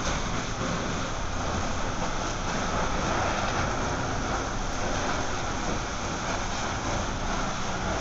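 Steady rushing hiss of a water hose played onto the glowing coke and slag dropped from a foundry cupola furnace, the water flashing to steam over the burning pile.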